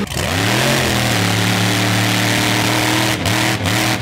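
Lifted mud truck's engine revving up over about a second, then held at high revs during a tyre-smoking burnout. The revs dip briefly twice near the end.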